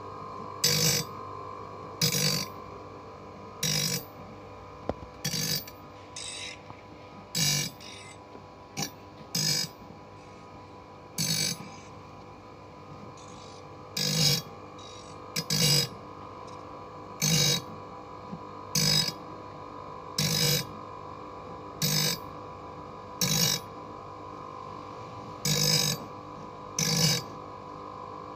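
Water-cooled saw-blade grinding machine running with a steady motor hum while its grinding wheel sharpens a circular saw blade one tooth at a time. Each tooth gives a short, loud grinding burst, about every one and a half seconds, with a longer pause near the middle.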